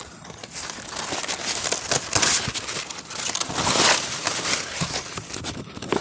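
Large teak leaves rustling and crinkling right against the microphone as a climber pushes up through the foliage, loudest about two and about four seconds in.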